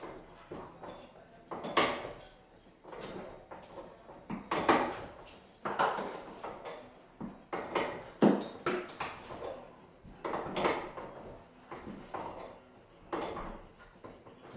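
Irregular knocks and clatter of hand work on garage door parts, about a dozen hits with short ringing tails.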